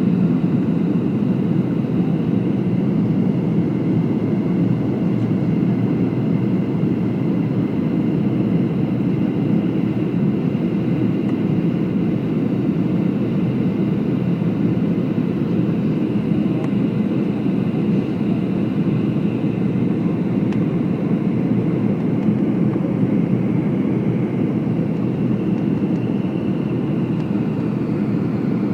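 Steady cabin noise inside a Boeing 757-200 airliner in flight: a constant deep rush of air and twin jet engine noise, with a faint high engine whine over it.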